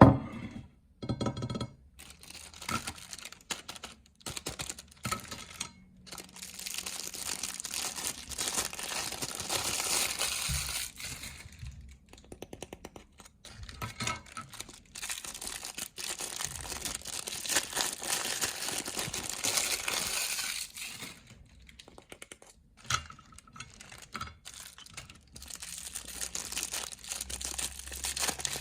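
Crisp meringue crunching and crackling as it is crushed through a small meat grinder, a dense run of crackle with a few short pauses.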